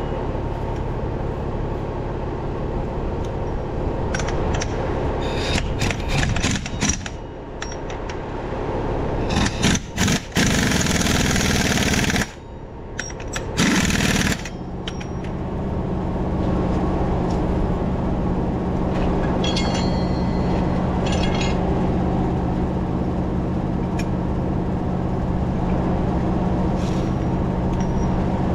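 An engine running steadily, with a few seconds of loud hissing and sharp clicks about a third of the way in; after that the engine settles into a strong, even low hum.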